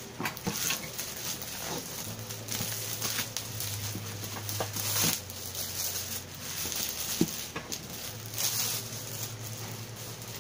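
Clear plastic shrink wrap being peeled off a cardboard box and crumpled in the hands, crinkling and rustling in irregular bursts, with a sharp click about seven seconds in.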